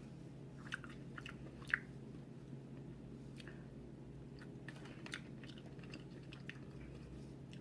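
Faint chewing of king crab meat close to the microphone: scattered small wet mouth clicks and crackles, the sharpest about a second and a half in, over a low steady hum.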